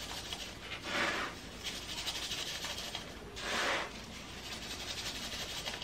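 Slotted litter scoop raking and sifting through clumping cat litter in a plastic litter box: a soft gritty scraping, with two louder sweeps about a second and three and a half seconds in.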